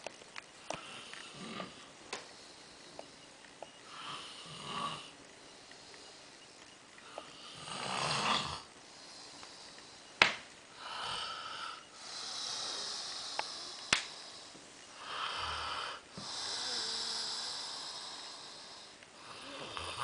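A man snoring in his sleep: a series of separate snores a few seconds apart, the later ones longer and drawn out. A few sharp clicks fall between them, the sharpest about halfway through.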